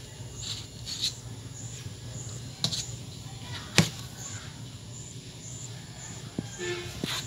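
Scattered light taps and knocks as two kittens paw at and bump against a tubular metal frame, the loudest about four seconds in, over a steady low hum.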